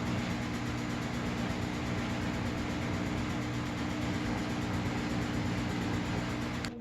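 Samsung washing machine running with a steady hum under an even rushing noise; the higher part of the sound cuts off suddenly near the end.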